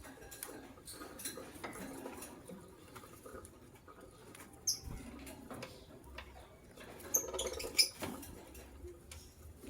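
Lovebirds making many small clicks and scratches, with a few short, high-pitched chirps about five seconds in and a cluster of them between seven and eight seconds.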